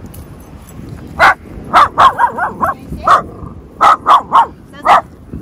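Mini dachshund barking repeatedly: about ten sharp, high barks starting about a second in, several coming in quick succession.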